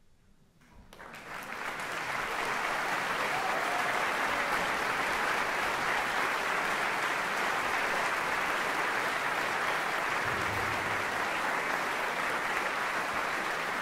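Audience applauding in a concert hall. It starts about a second in after a near silence, quickly swells, then holds as steady, dense clapping.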